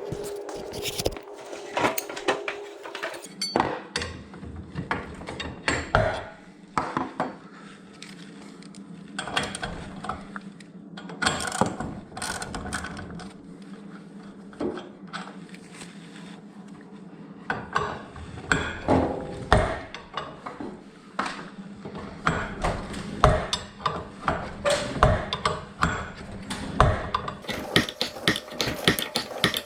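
Irregular metal clicks, clanks and ratchet-like clicking from hand tools working on garage door springs, over a steady low hum.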